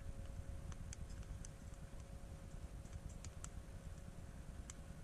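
Small wood fire crackling faintly: a few sharp, scattered pops over a low rumble, with a faint steady hum underneath.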